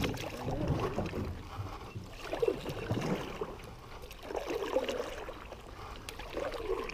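Water sloshing and lapping around a small paddled fishing boat, with irregular low knocks and movement.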